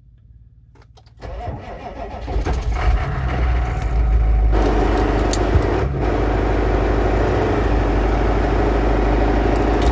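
Hummer H1's 6.5 L turbo-diesel V8 cranking about a second in, catching after long disuse and running rough. The owner suspects a spun bearing or a failing harmonic balancer.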